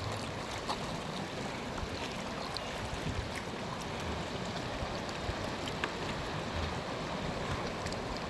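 Sea surf washing on the shore: a steady rush of water with a few small splashes and ticks.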